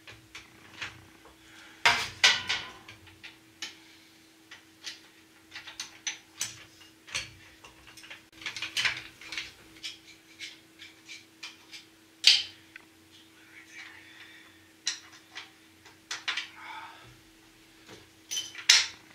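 Irregular metal clanks, knocks and clinks as a floor jack and a Ford 8N tractor's front axle are worked into place, the sharpest strikes about two seconds in and about twelve seconds in. A faint steady hum sits underneath.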